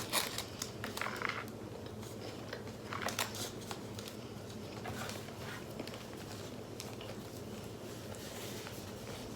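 Faint handling noises of food and its packaging: a few soft clicks and rustles in the first half, over a steady low room hum.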